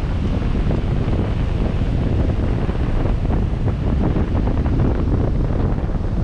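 Steady wind buffeting the microphone of a 4x4 driving slowly along a sand beach. Surf breaks along the shore close by.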